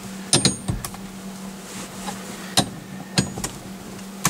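Metal tools working a makeshift steering wheel puller on a truck's steering wheel: a handful of sharp metallic clicks and knocks, some with a brief ring, over a steady low hum.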